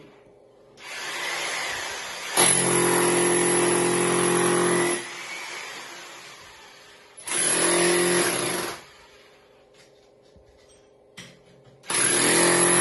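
An electric power tool motor runs in three bursts of a few seconds each, with quieter gaps between.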